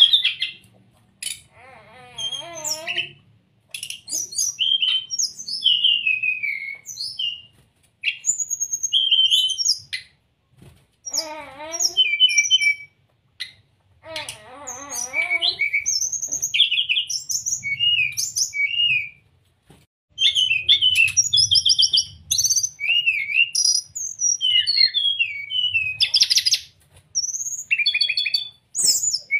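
Brown-chested jungle flycatcher singing: a varied run of short, high whistled phrases, trills and chatters broken by brief pauses, with a few lower, wavering phrases mixed in.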